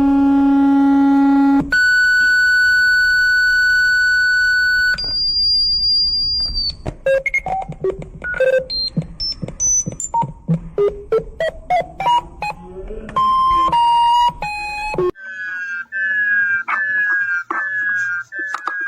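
Synthesized emergency-alert tones in sequence: a low buzzing tone, then a steady high tone for about three seconds, a still higher tone, a run of short beeps jumping between pitches, and in the last few seconds a falling chirp repeated about every 0.7 seconds.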